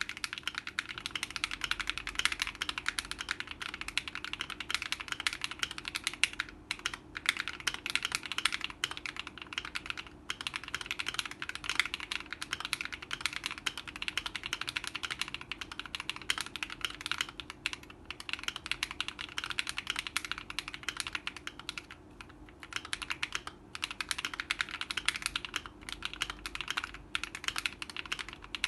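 Fast, continuous typing on a Keychron Q1 aluminium mechanical keyboard with the force-break mod, lubed and filmed Akko Radiant Red linear switches, lubed stock screw-in stabilizers and Akko ASA-profile keycaps. The typing stops for a few brief pauses.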